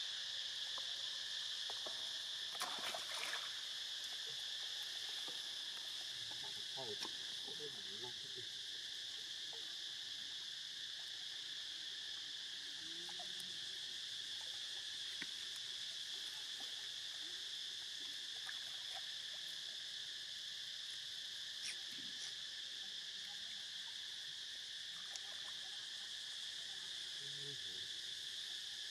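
Steady, high-pitched drone of an insect chorus, with a few faint scattered clicks.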